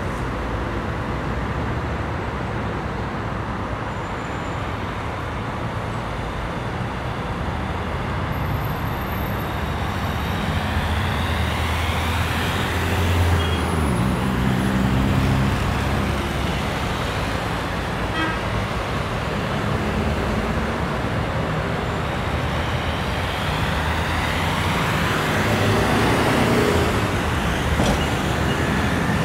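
City road traffic: a steady hum of cars and other vehicles on the streets, swelling as vehicles pass about halfway through and again near the end.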